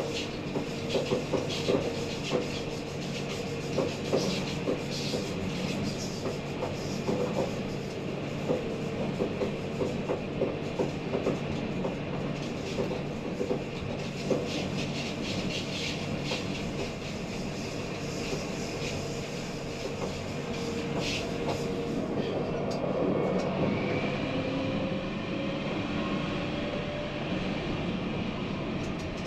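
Electric tram running on its rails, with frequent clicks and rattles from the wheels over the track and a steady motor hum. After about twenty seconds the clicks thin out and a motor whine rises slowly in pitch.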